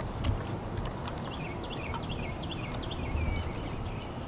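Small clicks and taps of a hex driver working a set screw out of an RC truck's plastic front hub carrier, over a low steady hum. A run of short, high, downward-sliding chirps comes from about one second in to past three seconds.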